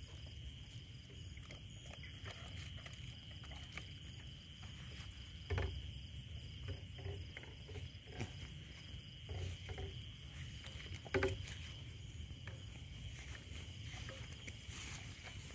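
Steady high-pitched chorus of night insects, two thin continuous trills, with rustling footsteps through grass and a few short knocks, the loudest about five and a half and eleven seconds in.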